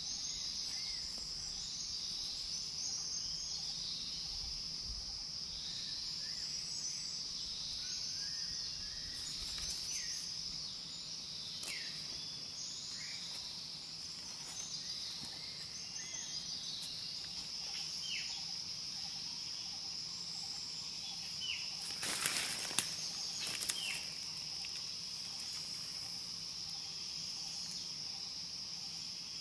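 Steady high insect chorus throughout, with a few short chirps scattered over it. About three quarters of the way through comes a brief cluster of rustles and clicks from handling sticks and leaves on the ground, the loudest moment.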